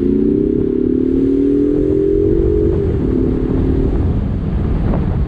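Ford Mustang engine heard from inside the car, pulling uphill with its note rising steadily for about three seconds, then easing off, leaving road rumble and wind noise.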